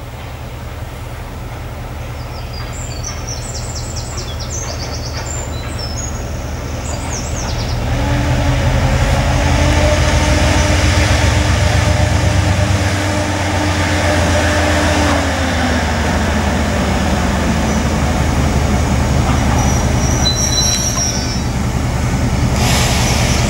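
Class 68 diesel-electric locomotive 68031, with its Caterpillar V16 engine, approaching with a train of coaches: a deep engine drone and rumble that grows louder as it nears, with its engine note sliding lower about two-thirds of the way through as it eases off and slows. A faint high squeal comes near the end.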